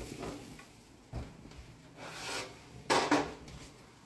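Handling and movement noises: a dull thump about a second in, then a short, louder scraping rub near three seconds.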